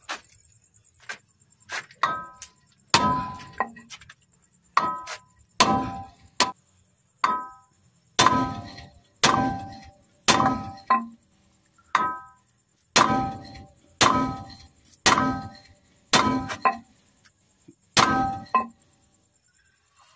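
Hammer blows driving new stud bolts into a Howo dump truck's steel wheel hub: about twenty sharp metallic strikes, roughly one a second, each ringing briefly. They stop shortly before the end.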